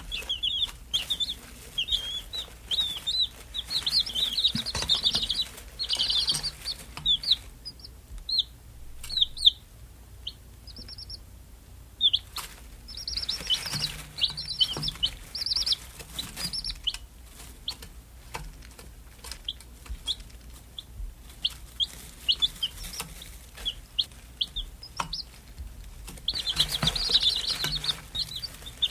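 Domestic chicks peeping: many short, high-pitched chirps overlapping in busy bursts, sparser in stretches, with a few faint clicks.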